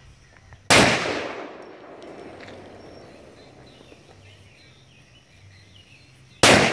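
Two single shots from an IMI Desert Eagle .50 AE pistol, nearly six seconds apart: one under a second in and one near the end. Each is a sharp report with a long echo trailing off over a second or more.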